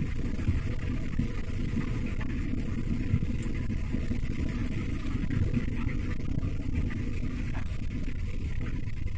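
Steady low rumble of a car driving along a highway, heard from inside the cabin.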